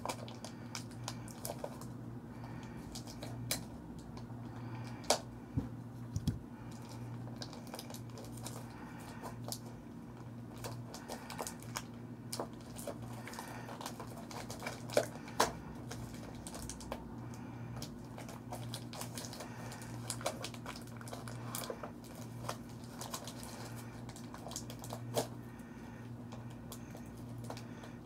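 Hands opening a mailed package, with irregular clicks, taps and crinkling of paper and plastic packaging. A few sharper clicks stand out, two close together about halfway through. A faint steady low hum runs underneath.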